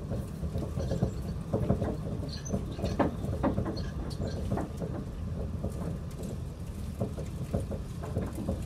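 Heavy rain pattering on the roof and windows, heard from inside, as a dense irregular patter over a steady low rumble.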